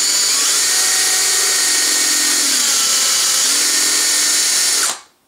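Electric drill with a 3/16-inch bit running steadily as it drills out the head of a rivet-like trigger-group pin in a Saiga rifle's steel receiver; the bit is close to cutting through the head. The motor's pitch sags slightly in the middle as the bit bites, and it stops just before the end.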